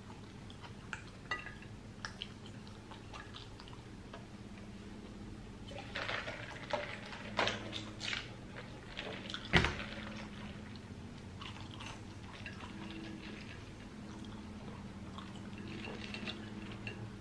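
Close-miked chewing and mouth noises from eating a chili dog and fries, with scattered small clicks. Around the middle comes a busier stretch of drinking from a soda cup, with one sharp knock about nine and a half seconds in, all over a faint steady hum.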